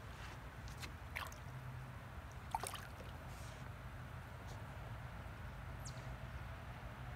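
Dog wading in shallow lake water, stirring it with small splashes and drips, the sharpest about two and a half seconds in, over a low steady hum.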